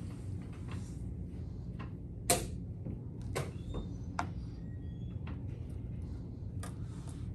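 Indoor hall ambience: a steady low room hum with scattered sharp clicks and knocks, the loudest about two seconds in, then several lighter ones.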